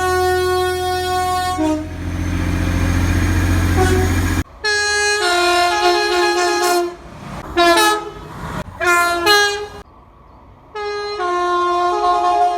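Class 185 diesel multiple unit two-tone horns sounded over and over: a held note at the start, then repeated high-low blasts, some short and some long, in clips spliced together. Between the blasts a low train rumble runs for a couple of seconds, and the sound cuts off abruptly twice where the clips are joined.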